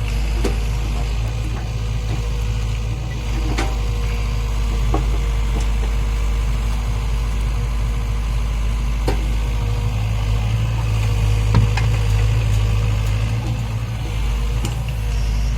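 Heavy diesel engine of earthmoving machinery running steadily with a deep low hum, with a few sharp knocks, one about three and a half seconds in and another about nine seconds in.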